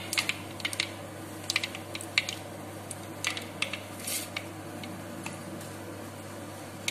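Mustard seeds popping and crackling in hot oil in a clay pot, with scattered, irregular sharp pops. About four seconds in, fenugreek seeds go into the oil with a short hiss.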